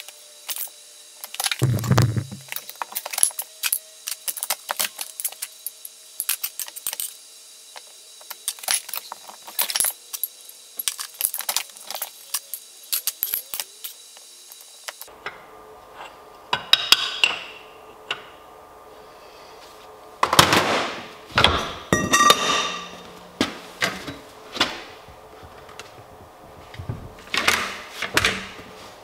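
Metal clinks and clanks as small sheet-steel pieces are set into and handled on a manual box-and-pan folder, with a heavier thump about two seconds in. The clanks are louder and more frequent in the second half.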